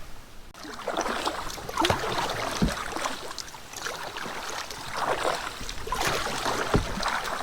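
Canoe being paddled through wind-blown water: paddle strokes splashing and water slapping the hull in surges about once a second, with a couple of dull knocks.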